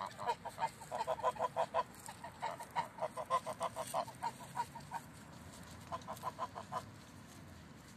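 Domestic geese cackling: quick runs of short, repeated honks in three bursts with short pauses between, fading out near the end.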